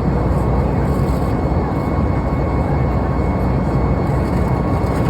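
Steady cabin noise of a Boeing 737 MAX climbing toward cruise: the CFM LEAP-1B engines and rushing airflow make a loud, even drone heaviest in the low range, with a faint steady whine on top.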